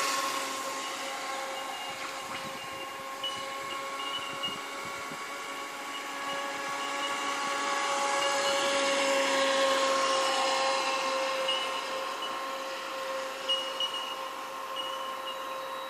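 Radio-controlled speedboat running at full speed, its motor giving a steady high whine that drifts slowly lower in pitch. It fades as the boat runs away, swells again as it passes nearer about eight to ten seconds in, then fades.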